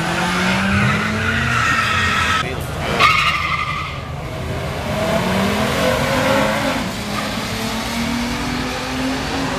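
Drag cars accelerating hard down the strip. First one car's engine pulls away, then two cars launch side by side, their engine notes rising through the gears with a shift about two-thirds of the way in.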